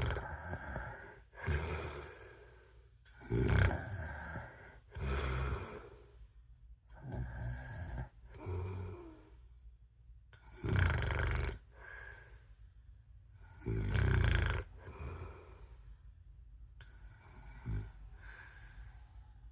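A person snoring in a steady rhythm: a loud rasping snore about every three to four seconds, each followed by a softer breath out, six cycles in all.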